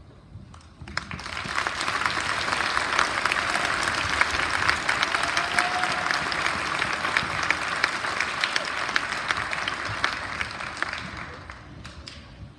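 Audience applause, with many hands clapping. It starts about a second in, right after the band's last note, and dies away near the end.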